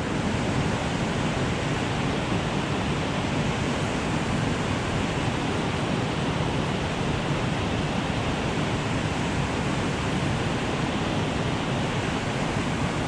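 Turbulent creek whitewater rushing out below a dam outlet, a steady, unbroken wash of water noise.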